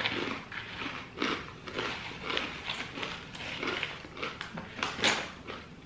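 Thin, seeded flatbread crisps being chewed, a run of crisp crunches about two or three a second, the sharpest one near the end.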